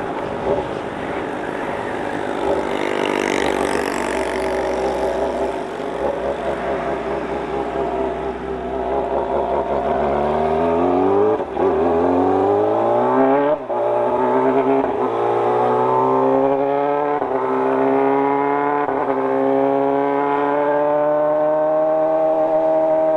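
Kawasaki ZX-25R's inline-four engine, bored up to 300cc and breathing through a Toce racing exhaust, heard from on the bike. It runs steadily at first, then accelerates hard through about five quick upshifts, the pitch climbing and dropping at each shift, and holds high revs near the end.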